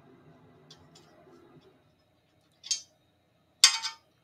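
Hands working a small screw into an onn. tabletop TV stand's leg bracket, trying to get the thread to catch. There are a few faint ticks, a short scrape about two and a half seconds in, and a louder rasping scrape near the end.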